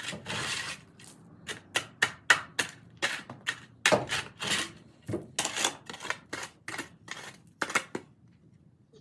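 Digging by hand in packed dirt: a quick, uneven run of sharp strikes and scrapes, about three a second, that stops about a second before the end.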